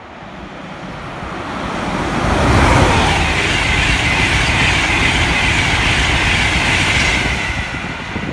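Express passenger train passing through a station at speed. It rises from a distant rumble to a loud rush of wheels on rail about three seconds in, holds for about four seconds as the coaches go by, then fades as the train draws away.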